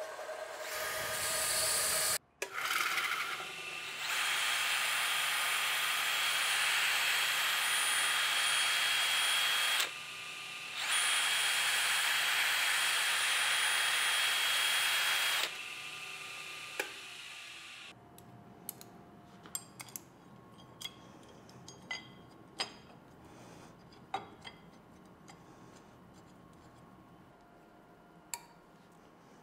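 Milling machine cutting with an end mill: a loud, even hissing cut with a steady high whine, pausing briefly about a third of the way in and stopping about halfway. Then light metallic clicks and taps of tools and the workpiece being handled.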